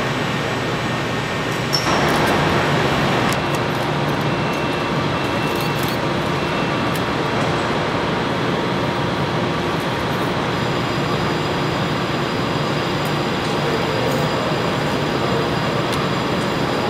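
Steady background noise of a large aircraft assembly hall: an even hum and hiss of the factory floor, with a few faint clicks.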